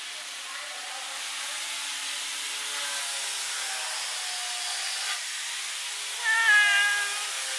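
Hungry kittens meowing for food: several faint meows, then one loud meow about six seconds in. A steady hiss runs underneath.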